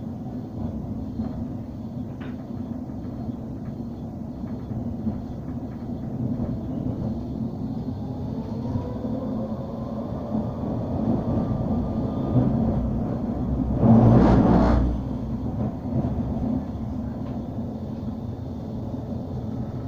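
Bombardier Incentro tram running on its rails, heard from inside the passenger saloon: a steady rumble, with the traction motors' whine rising in pitch from about eight seconds in as the tram picks up speed. About fourteen seconds in, a loud rushing noise lasts about a second, then the rumble goes on.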